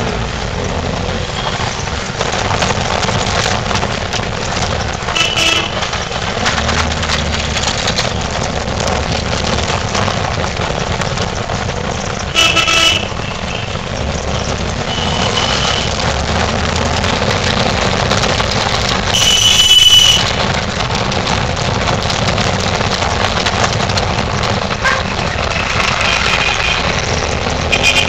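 Riding inside an auto-rickshaw in busy street traffic: the rickshaw's engine and road noise run steadily while vehicle horns toot several times, the loudest about twenty seconds in.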